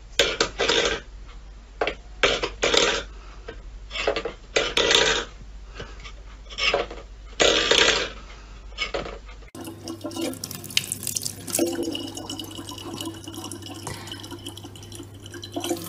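Stainless steel bowl clattering and scraping on a wooden floor in irregular knocks as a cat paws at it. About nine and a half seconds in, this gives way to a thin stream of water running steadily from a tap into a plastic bottle.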